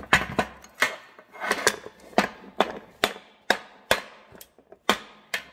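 A steady series of hammer blows on a steel driveshaft yoke, about two a second, knocking a worn universal joint's bearing cup out of the yoke.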